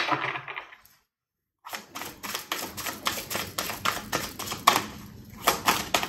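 A deck of oracle cards being shuffled by hand: a fast, uneven run of soft clicks and flicks as the cards slide and slap against each other. It starts about two seconds in, after a moment of dead silence.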